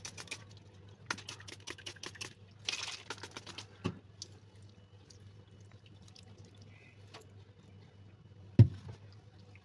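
Hands scrubbing a wet stainless steel kitchen sink: two quick runs of short rubbing strokes in the first few seconds, a brief hiss about three seconds in, and one loud thump against the sink near the end.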